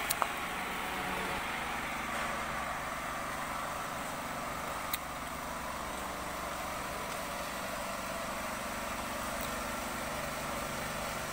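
Steady outdoor background noise with a faint engine hum, broken by a couple of light clicks near the start and one about five seconds in.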